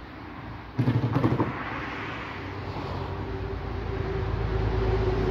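Road traffic: motor vehicles, including a truck, approaching with engine hum and tyre noise that grow steadily louder. About a second in there is a sudden louder burst with a few knocks.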